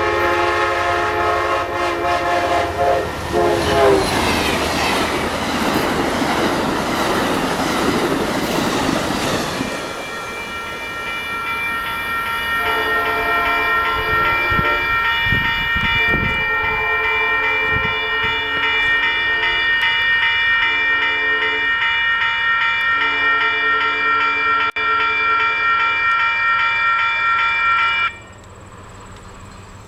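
Nathan K5LA five-chime horn on an Amtrak P42DC locomotive sounding a chord, then the train rushing past with clattering wheels. After the pass, horn blasts sound on and off in a horn-show pattern over steady high tones, and the sound cuts off shortly before the end.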